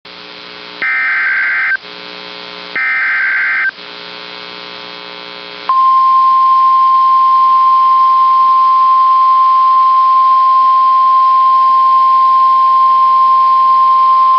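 NOAA Weather Radio Emergency Alert System signal: two roughly one-second bursts of SAME digital data tones over a buzzing hum, then the steady single-pitch warning alarm tone held for about nine seconds. This is the alert sequence that announces a new warning broadcast.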